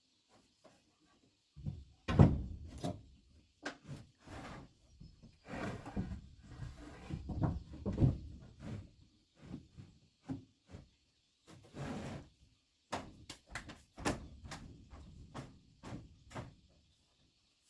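Wooden pieces being handled and knocked together: irregular knocks and thuds, with a few short scraping stretches.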